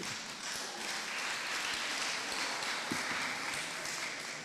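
Audience applauding, building up and then fading away near the end.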